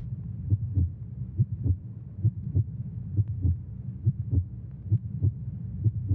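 Heartbeat sound effect: paired low thumps, lub-dub, repeating about once a second over a steady low hum.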